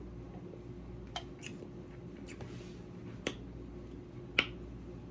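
A person drinking soda: about five short, soft clicks from gulping and swallowing, spaced irregularly, over a low steady hum.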